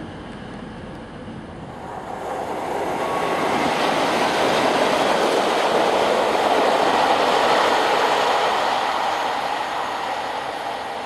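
A pair of diesel locomotives, one of them a Class 37, passing through the station and drawing away. Their engine and wheel noise builds over about two seconds, holds loudest for a few seconds, then fades.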